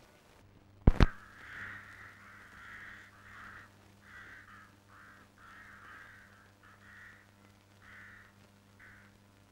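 Crows cawing, a run of about nine caws roughly one a second, after a sharp, loud double pop about a second in.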